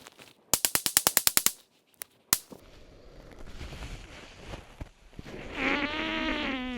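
Semi-automatic .22 LR rifle fired in a fast string of about ten shots in about a second, emptying a ten-round magazine, followed by one more sharp report about a second later.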